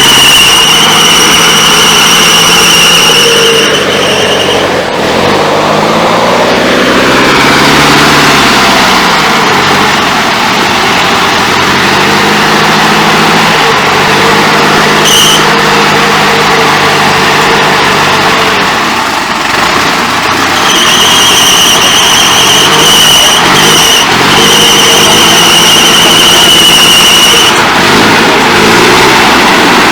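Off-road car's engine revving up and down repeatedly under load, with a steady high-pitched whine that cuts in and out.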